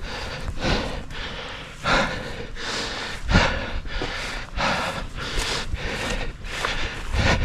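A man panting hard and loud, roughly a breath a second, while hurrying on foot through tall grass. The heavy breathing is from running.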